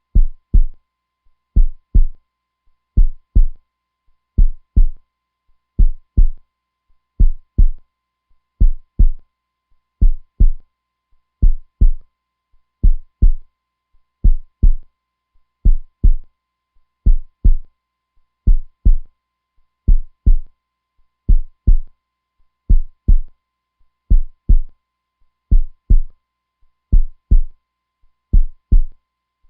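Steady heartbeat: a low double thump (lub-dub) repeating about every second and a half, even and unchanging.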